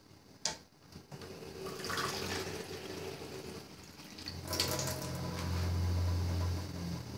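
Water running from a kitchen tap to measure out water for the gluten flour dough, with a sharp knock about half a second in and a low steady hum in the second half.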